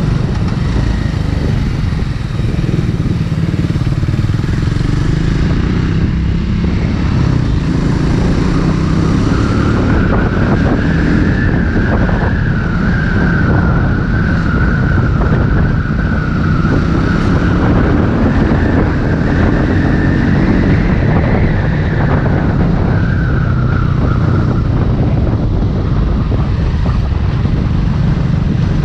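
Triumph Speed 400's single-cylinder engine and exhaust running steadily while the bike is ridden. A faint high whine rides over it from about a third of the way in until near the end.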